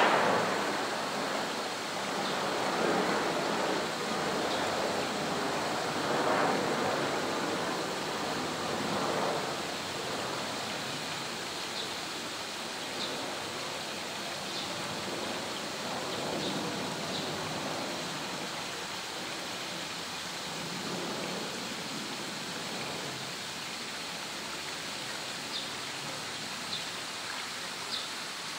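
Steady rushing of running water, with faint short high chirps now and then in the second half.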